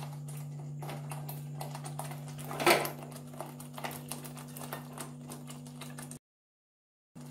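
Thick tomato gravy simmering in a pan, its bubbles popping in small irregular ticks, over a steady low hum. There is one louder knock a little under three seconds in as fried paneer cubes are tipped in, and the sound cuts out briefly near the end.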